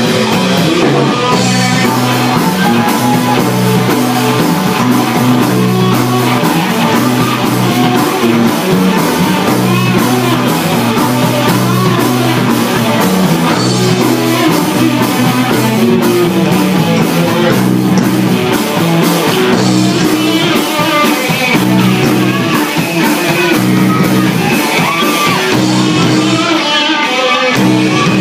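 Live rock band playing loud, with electric bass, electric guitar and drum kit.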